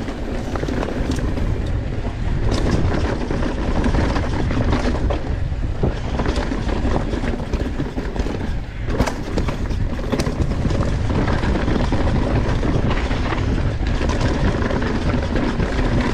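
Downhill mountain bike ridden fast down a rough trail: steady wind rush on the microphone, tyres rolling over dirt and rock, and scattered sharp clatters from the bike over the rough ground.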